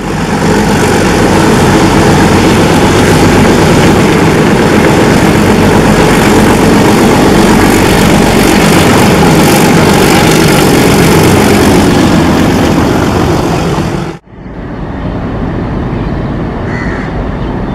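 ALCo WDM-3A diesel locomotive running loud, its engine tones rising and falling. About 14 seconds in the sound cuts off abruptly to a quieter, steady engine sound, with a couple of crow caws near the end.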